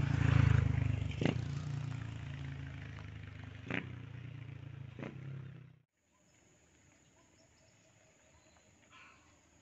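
A motor vehicle passing close by, its engine loudest about half a second in and fading away over several seconds, with a few sharp clicks. The sound cuts off abruptly about six seconds in, leaving faint outdoor background.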